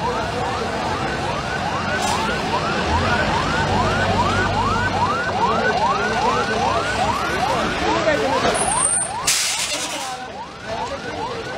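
Fire engine siren in fast yelp, a rising wail repeating about two and a half times a second, over background crowd noise. About nine seconds in, a short loud rushing burst cuts across it.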